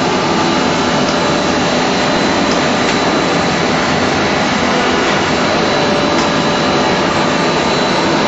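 Plastic film blowing machine and in-line gravure printing machine running: a loud, steady mechanical whir with steady whining tones, some high and some midrange.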